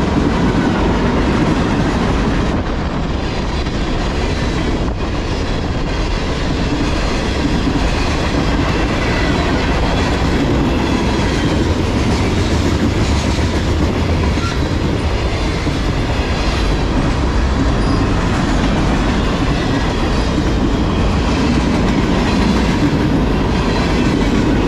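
Freight cars of a long mixed freight train rolling past close by: a steady rumble and clickety-clack of steel wheels over the rail joints.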